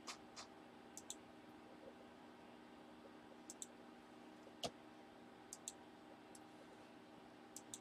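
Faint, short clicks scattered through near silence, several coming in close pairs and one a little louder near the middle, over a low steady hum.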